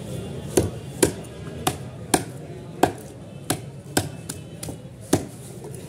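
Sharp knocks on a wooden chopping block as a large fish is scaled with a heavy knife and struck with a wooden mallet: about ten crisp strikes, irregularly spaced at roughly two a second.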